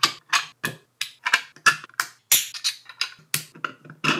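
3D-printed plastic parts of a hand-crank gear mechanism clicking and clacking as they are pressed and snapped together by hand: a run of sharp, irregular clicks, about four a second.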